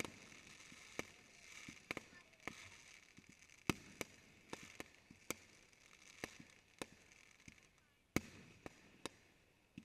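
Fireworks display: aerial shells bursting one after another in an irregular series of sharp bangs, about fifteen of them, the loudest about 4, 5 and 8 seconds in, with a steady hiss between them.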